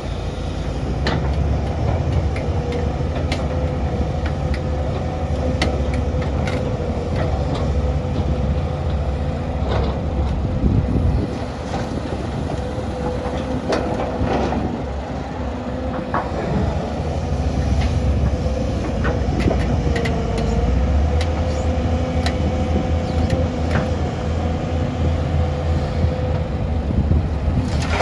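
Doosan DX excavator working: its diesel engine runs steadily with a steady whining tone over it, and scattered metallic clanks and knocks.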